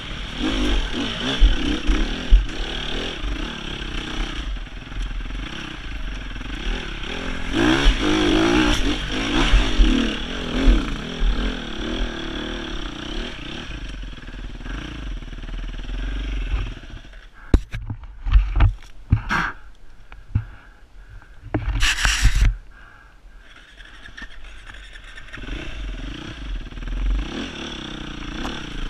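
Sherco 300 four-stroke enduro motorcycle engine revving up and down as it climbs a forest trail. About seventeen seconds in the engine drops away to a low running sound with scattered knocks and clatter and one short loud rush, then the revs build again near the end.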